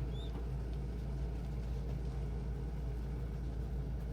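Steady low background rumble with a faint hum, and a brief faint high chirp just after the start.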